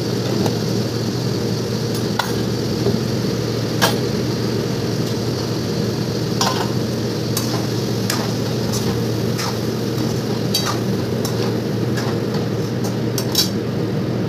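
Spices being spooned into a pan and stirred on a gas stove: scattered light metal clicks and clinks of a small spoon against spice containers and the wok, over a steady kitchen hum.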